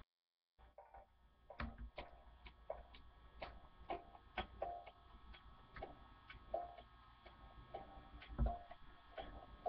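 A series of faint, sharp clicks or ticks, irregularly spaced a few times a second, some followed by a brief low tone.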